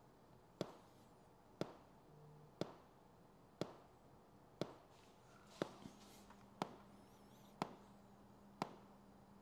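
Polarity test track playing through the motorcycle's Hertz audio speakers: sharp pops, one a second, nine in all. The pops are the test pulses that a handheld polarity checker reads to tell whether each speaker is wired in phase.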